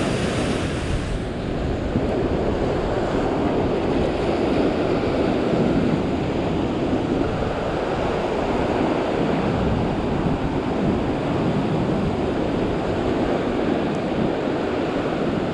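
Ocean surf breaking and washing over a rock ledge, a steady rushing without let-up, with wind noise on the microphone.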